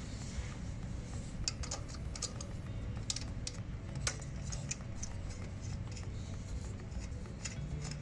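Scattered small metallic clicks and ticks of a screwdriver working the CPU heatsink's mounting screws, with light handling of the cooler.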